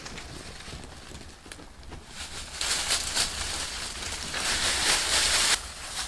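Dry leaves and brush rustling and crackling, getting louder about two seconds in and cutting off suddenly near the end.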